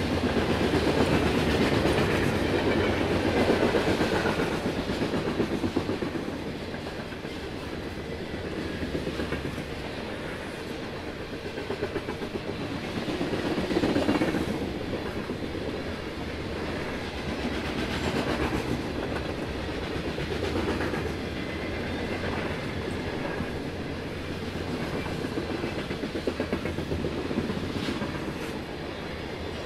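Covered hopper cars of a freight grain train rolling past: a steady rumble of steel wheels on rail with a rapid clickety-clack over the rail joints, swelling and easing as the cars go by.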